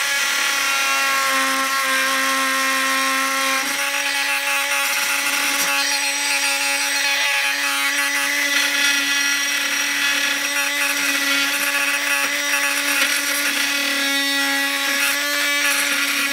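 Bosch oscillating multi-tool running at one steady pitch, its blade cutting into timber as it trims protruding corners flush.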